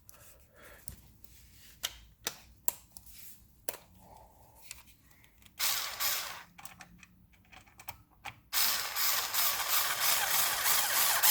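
Black and Decker Li2000 cordless screwdriver running forward to drive a screw home, a short spell about five and a half seconds in and a longer, louder one of nearly three seconds near the end. Small scattered clicks of screws and plastic being handled come before.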